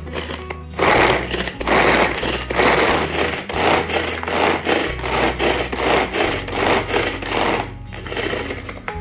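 Pull-string manual food chopper being yanked over and over, its blades whirring and clattering as they mince garlic, about two pulls a second.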